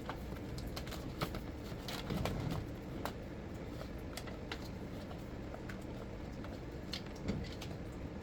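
Scattered light clicks and taps of hands handling the parts of a disassembled NutriBullet 1200 blender base, over a steady low background hum.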